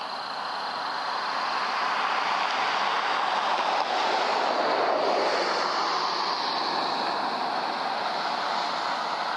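A steady rushing noise that builds to its loudest about halfway through and then slowly fades, with a faint steady high whine underneath.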